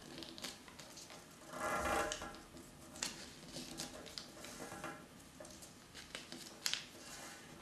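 Sheet of paper being folded in half and creased by hand on a glass tabletop: rustling with scattered crisp crackles and light taps, and a louder swish about two seconds in.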